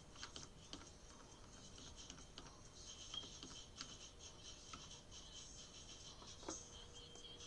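Near silence with faint, irregular computer clicks from keys and mouse as settings are switched, one slightly louder about six and a half seconds in.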